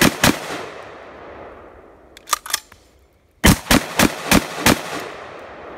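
Leader Designs T2 MK5 semi-automatic rifle in 5.56 firing. Two shots come right at the start, then two fainter clicks about two and a half seconds in. A fast string of five shots follows, about three a second, with each shot echoing after it.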